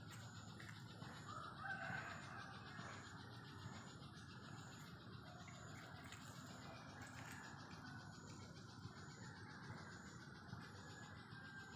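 Faint rural outdoor ambience with a distant rooster crowing briefly about one and a half seconds in.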